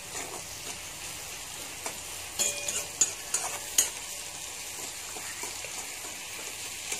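Sliced onions and garlic frying in hot coconut oil in a kadai, sizzling steadily, while a spatula stirs them and clicks and scrapes against the pan a few times between about two and a half and four seconds in.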